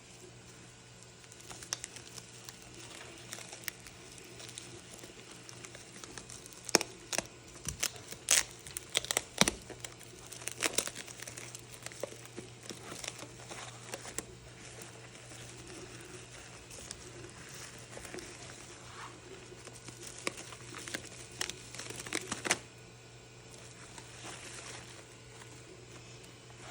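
Packing wrap crinkling and tearing as it is pulled off a boxed doll, in irregular bursts, busiest about seven to eleven seconds in and again around twenty to twenty-two seconds in.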